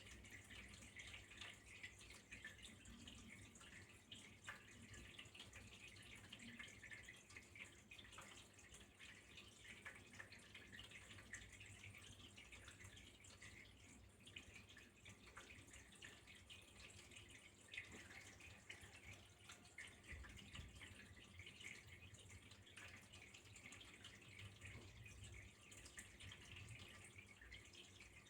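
Faint, steady trickle of running water with many small drips and splashes.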